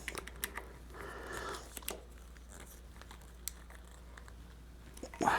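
Faint handling noises: rustling and a scattering of small clicks.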